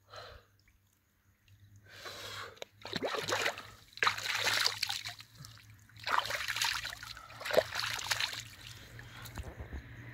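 Water splashing and trickling in three irregular bursts, the first starting about two seconds in, over a faint low steady hum.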